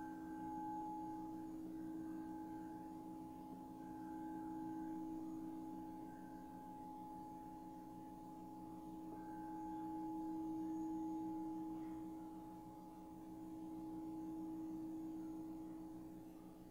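Singing bowls ringing: a sustained hum of several steady tones that swells and fades slowly, as a bowl is played with a mallet.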